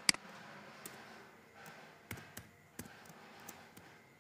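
Computer keyboard and mouse clicks while a password is typed: one sharp click just after the start, then a handful of faint, irregular key taps.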